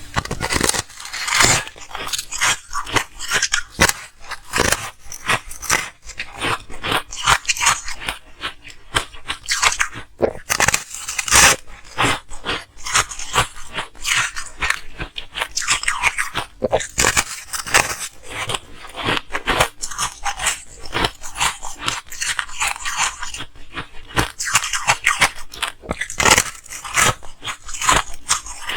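Ice being crunched and chewed between the teeth, close to the microphone: a dense, uneven run of crisp crunches with brief pauses between bites.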